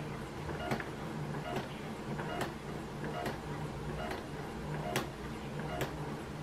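Electric sewing machine running at slow speed, stitching through paper: a steady motor hum with a sharp click from each needle stroke, about one a second.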